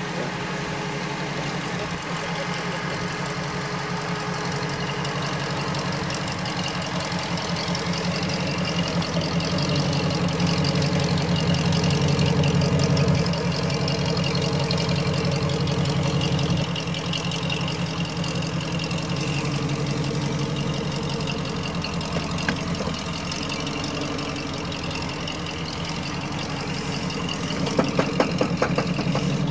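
Jeep CJ's engine running at low revs as the Jeep crawls over rough dirt, the revs climbing about ten seconds in and easing off a few seconds later.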